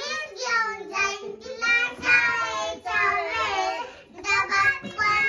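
A child singing in a high voice, the pitch bending and wavering from phrase to phrase.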